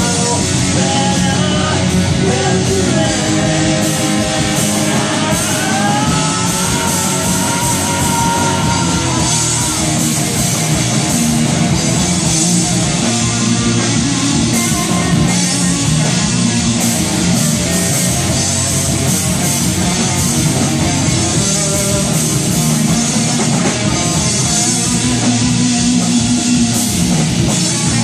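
Rock band playing live in a rehearsal room: drum kit with cymbals and loud electric guitar, with a lead line of bent notes over the first third.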